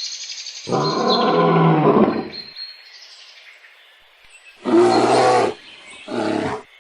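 Tiger roaring: one long roar, then two shorter roars near the end.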